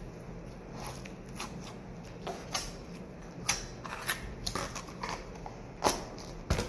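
Slime being played with by hand, giving irregular small sticky pops and clicks, the loudest near the end.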